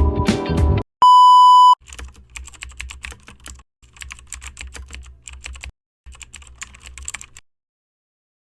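Music cuts off just under a second in, followed by a single loud electronic beep lasting under a second. Then comes rapid computer-keyboard typing, in three runs of quick clicks separated by short pauses, which stops about a second before the end.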